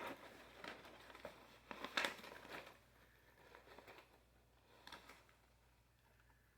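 Faint, irregular crinkling and rustling of a snack bag being handled, mostly in the first three seconds, with one more rustle near the end.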